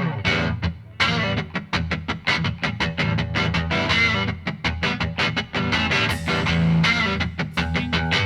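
Background rock music led by electric guitar, with a quick, regular rhythm of picked notes.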